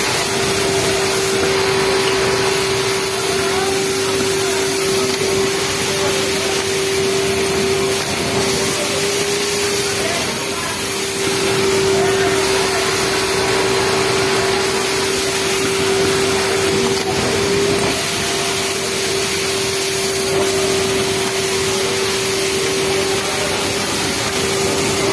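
Pegasus flatlock industrial sewing machine running steadily while it hems a T-shirt sleeve, against the constant whirr of other sewing machines on a garment factory floor, with a steady hum that does not let up.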